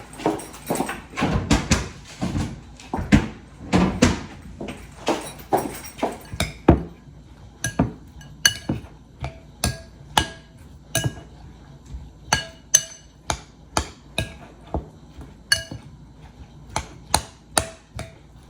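Kitchen utensil knocking again and again against a bowl as a salad is mixed, deeper and more crowded knocks at first, then about two clinks a second, each ringing briefly.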